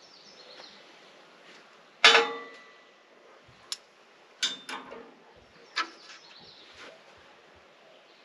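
Steel wrenches clanking against a steel machine frame as they are handled and set down: one loud ringing clank about two seconds in, then several lighter clinks and clanks.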